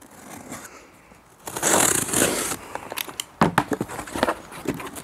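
Packing tape on a cardboard box slit with a utility knife: one long tearing scrape from about 1.5 s to 2.5 s in, followed by a run of sharp clicks and knocks as the cardboard flaps are pulled open.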